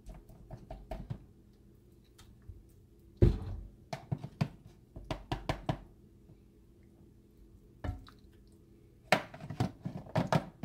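Raw chicken drumsticks being handled and set down into an oiled clay tagine dish: soft wet thuds and knocks in several short clusters, the loudest about three seconds in.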